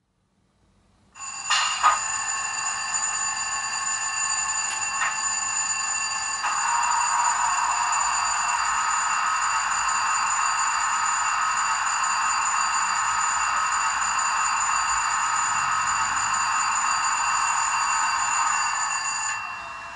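Loudspeaker of a DCC sound decoder in a Bachmann OO-gauge Class 70 model locomotive playing its diesel engine sound. It comes in with a couple of clicks about a second in, then settles into a steady, high-pitched idling drone with several thin whistling tones. The drone thickens about six seconds in and drops back near the end.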